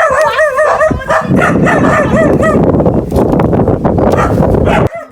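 An animal's wavering cries, several in a row, over a loud rushing noise that cuts off suddenly near the end.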